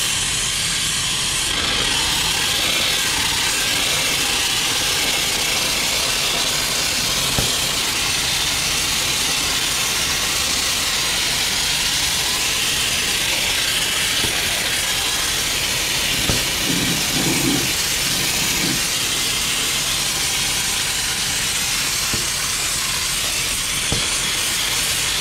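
Compressed-air spray gun hissing steadily as it sprays a thick, Vaseline-like grease undercoating.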